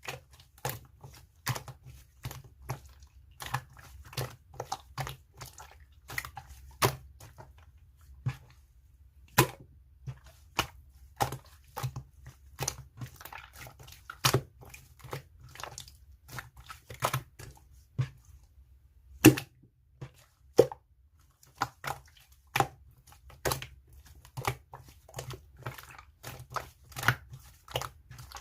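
Slime being squeezed, pressed and stretched by hand, giving irregular sharp pops and clicks, a few a second.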